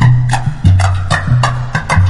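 Samba music in a short instrumental passage between sung lines: a bass line moving note to note about twice a second under quick, even percussion strokes.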